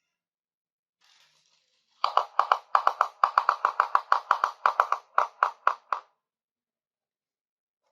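Rapid, even light tapping of small hard objects, about six taps a second for some four seconds, starting about two seconds in and stopping abruptly.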